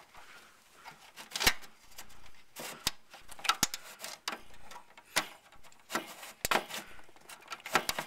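Irregular clicks, knocks and light scraping as a memory expansion card is slid into an expansion slot of an IBM PS/2 Model 80 and pushed home, with several sharp clicks as it goes in.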